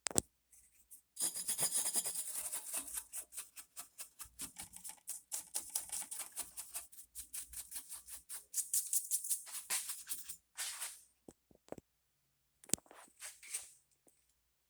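A brush scrubbing dust off the inside of a Yamaha HTR-5960 AV receiver. It makes rapid back-and-forth bristle strokes, several a second. The strokes stop at about ten and a half seconds, and a shorter burst of brushing follows a couple of seconds later.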